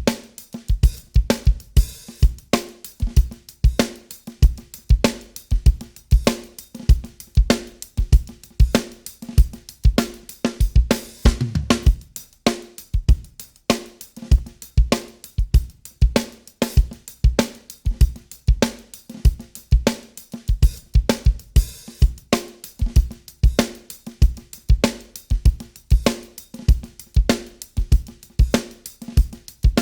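A simple recorded drum loop of kick, snare, hi-hat and cymbal playing in a steady repeating rhythm. It runs through the TK Audio Transformer's first-stage drive saturation, which is switched in and out of bypass for comparison; the drive gives the kick drum a slight crunch.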